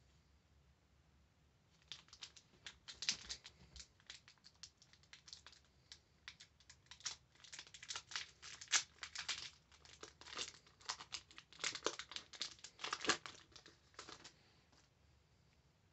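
A Pokémon booster pack's foil wrapper crinkling and tearing as it is opened by hand. A dense run of sharp crackles starts about two seconds in, with loud bursts, and dies away near the end.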